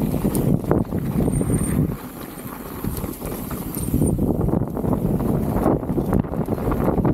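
Specialized Status 160 mountain bike rattling over a rough trail, a dense run of knocks and clatter from tyres and frame. The clatter eases about two seconds in and picks up again at about four seconds.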